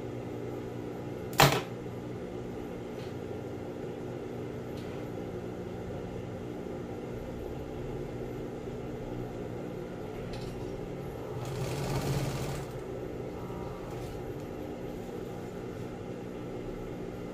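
Industrial sewing machine's motor humming steadily. There is one sharp click about a second and a half in, and a short burst of stitching through the vinyl and binding tape about twelve seconds in.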